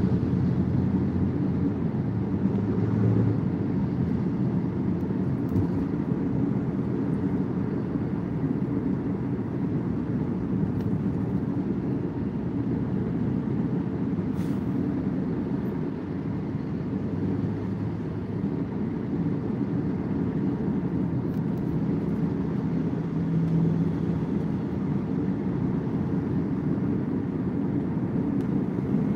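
Car cabin noise while driving at a steady pace: the engine and tyre-on-road noise make a continuous low drone.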